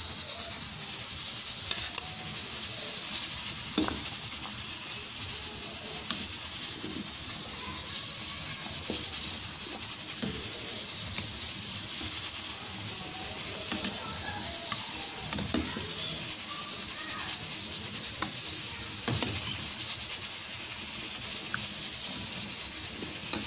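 Water at a rolling boil in a stainless steel pot of corn and vegetables, a steady bubbling hiss, with a few light knocks of a ladle against the corn and the pot.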